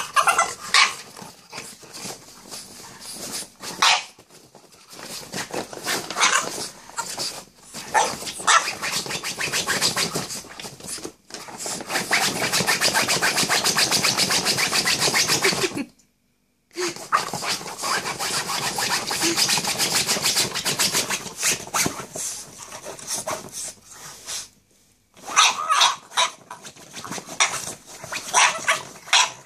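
French bulldog digging and scratching at the nylon seat of a folding camping chair, its claws rasping the fabric in rapid strokes, with the dog's own noises mixed in. The scratching comes in long bouts that stop abruptly a few times.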